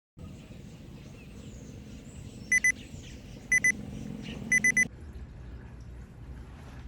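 Digital timer beeping in three quick double beeps about a second apart over a steady low background, marking the start of a Pomodoro study session. Just after the beeps the background changes abruptly to a steady rain hiss.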